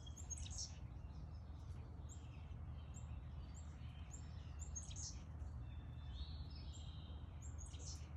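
Several backyard birds chirping and calling, short high notes coming every second or so, over a steady low background rumble.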